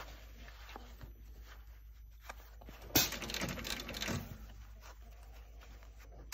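Quiet rustling of a hockey glove and its leather palm being handled and repositioned under a sewing machine's needle, with one sharp click about three seconds in. The machine is not stitching.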